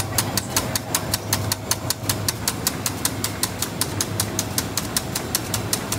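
Gravure ink pump with automatic viscosity control running: a rapid, even clicking at about six a second over a steady low hum.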